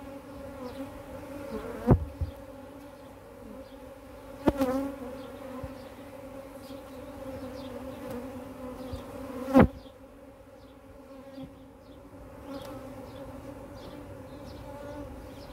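Many honeybees buzzing steadily in a hum around the hive. Three sharp knocks from the hive lid and wooden hive parts being handled, about two, four and a half and nine and a half seconds in, the last the loudest.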